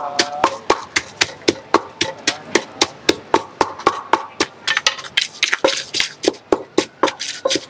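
Wooden pestle pounding in a large som tam mortar, a steady run of knocks about three to four a second, as chillies are crushed for a Thai papaya salad.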